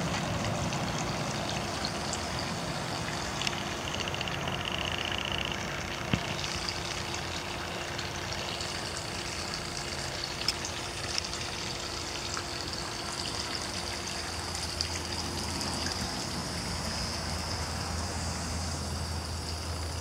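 Steady outdoor background noise: an even hiss with a faint steady hum. A brief high tone sounds about four seconds in, a low drone comes in about two-thirds of the way through, and a few faint clicks are scattered throughout.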